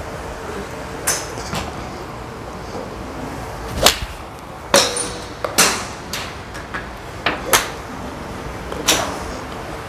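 Golf balls being struck off range mats: about nine sharp club-on-ball cracks from full swings, spread unevenly, the loudest about four seconds in, with more than one golfer hitting.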